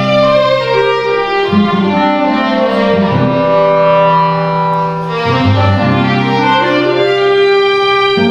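Live chamber music: violin, cello and clarinet playing slow, sustained notes. The cello holds long low notes that change every second or two, while the upper lines step downward and then climb back.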